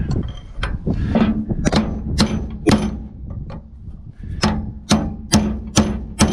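Hammer striking a brass punch to drive new lug studs into a 2018 Subaru Forester's wheel hub: sharp ringing metallic blows about two a second, in two runs with a short pause between. Some clattering as the tools are handled first.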